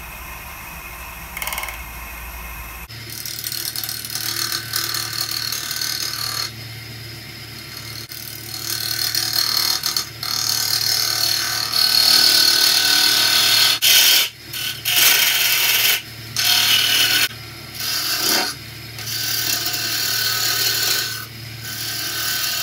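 Wood lathe spinning a chokecherry goblet while a spindle gouge and parting tool cut in at its base to part it off, a rough cutting noise that starts about three seconds in and stops and restarts several times as the tool is lifted and set back in.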